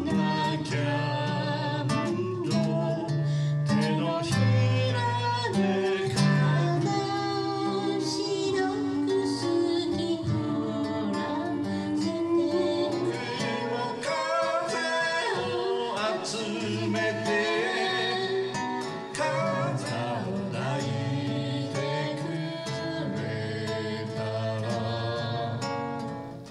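Folk song performed live: an acoustic guitar strummed as accompaniment to singing into a microphone.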